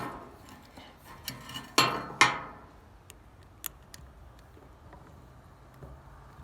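Metal tools and parts clinking and knocking during work on an alternator pulley: a few light clicks, then two louder ringing metal knocks about two seconds in, then a few faint ticks.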